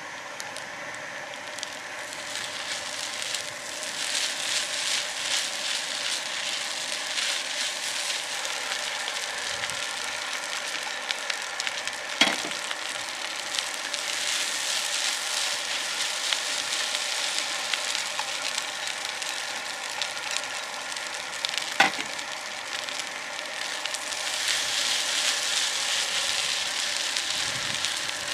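Food sizzling and frying in hot oil in a pan, a dense crackling hiss that builds up over the first few seconds and then holds steady. Two sharp knocks come about twelve and twenty-two seconds in.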